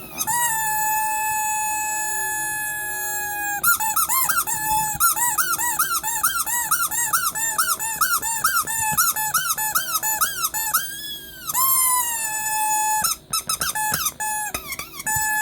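Rubber squeaky teddy-bear toy being squeezed: one long held squeak, then a quick run of short squeaks at about three a second, then a few more long squeaks near the end.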